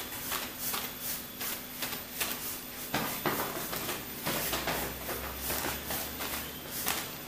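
Crumpled plastic bag dabbed again and again against wet wall paint, crinkling and tapping with each press, about two to three dabs a second at an uneven pace, texturing the paint into a marble pattern.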